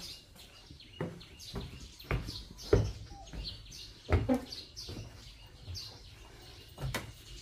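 A few scattered knocks and thumps, with faint bird chirps behind them.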